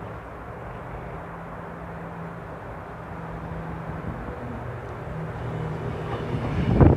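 Four-car electric train creeping into the platform: a steady low hum that slowly grows louder, with one loud thump just before the end.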